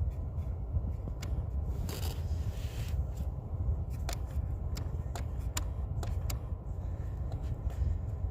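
Scattered sharp plastic clicks and short scrapes from a Hyundai Tucson's HVAC mode door actuator and its white plastic cam as the cam is pushed by hand to move a binding mode door, over a steady low rumble.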